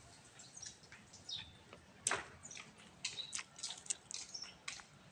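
Scattered short, high-pitched chirps and clicks from small birds over faint background noise, with the loudest chirp about two seconds in.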